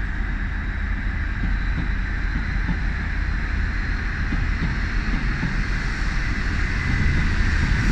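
Paxman VP185 V12 diesel engine of a Class 43 HST power car working hard as the train pulls away from a standstill, a steady deep rumble with a hissing edge that grows louder near the end.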